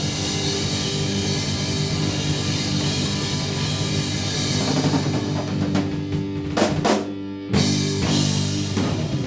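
Rock band playing live: drum kit with electric guitar and bass holding loud chords, a few sharp drum hits about seven seconds in, then a final struck chord that cuts off at the very end.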